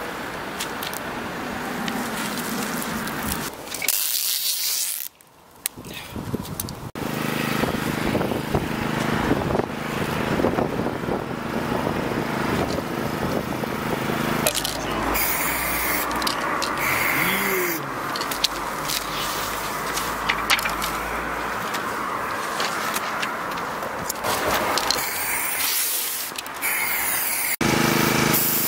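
Street roadworks noise in several abruptly cut pieces: a machine engine running with a steady hum, traffic rumble, scraping, and the hiss of a spray hose.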